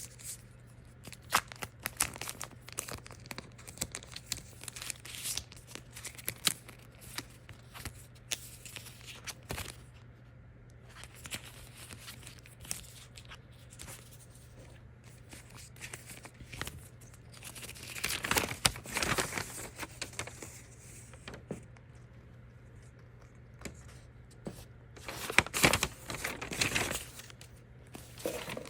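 Packaging being handled and opened: scattered clicks and taps of boxes and parts, with two longer spells of wrapping crinkling and tearing in the second half.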